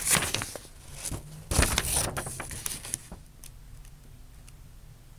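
Handling noise from a handheld camera and printed paper being shifted: irregular rustling and scraping, loudest about one and a half seconds in. After about three seconds it dies down to a faint steady hum.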